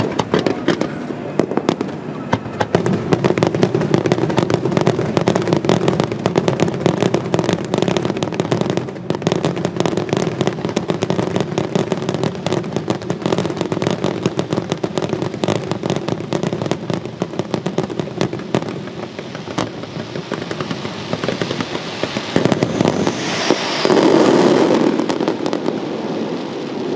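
Fireworks display: a dense, continuous run of pops and bangs from shells and fountains going off together, swelling louder near the end.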